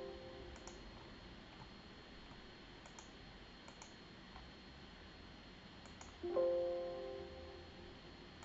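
Windows error alert chime, several tones ringing together and fading over about a second and a half, sounding about six seconds in as an error dialog pops up; the fading tail of an earlier chime is heard at the start. Light mouse clicks, some in quick pairs, come in between.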